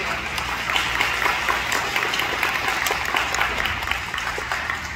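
Audience applauding, a dense patter of clapping that begins to die down near the end.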